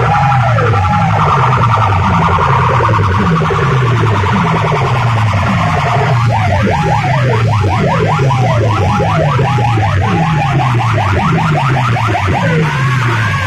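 Loud DJ sound-system music: a bass note sliding down in pitch over and over, under siren-like electronic sweeps that turn into a fast, warbling alarm-like chirp about halfway through.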